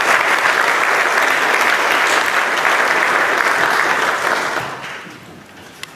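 Audience applauding, holding steady for about four and a half seconds and then dying away, with a single click near the end.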